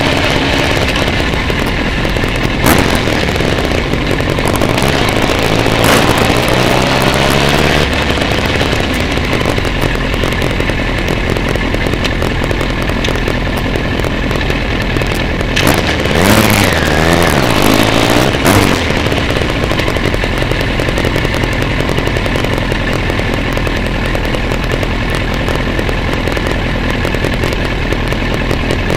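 Motorcycle engines running in a slow group ride, heard from onboard a motorcycle. The engine note rises and falls a couple of times as the bikes speed up and ease off, with a few short knocks.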